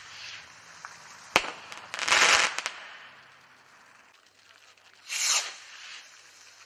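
Consumer fireworks from a selection box going off: a single sharp bang about a second and a half in, then a loud hissing rush lasting about half a second. A second, shorter hiss comes near the end.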